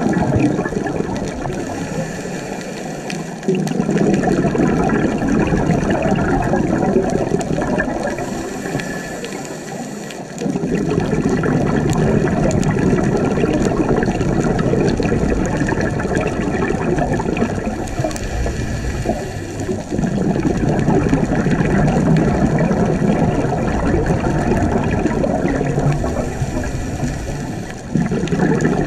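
Scuba diver breathing through a regulator underwater, about one breath every eight seconds. Each breath is a brief faint hiss on the inhale, followed by several seconds of loud bubbling as the exhaled air escapes.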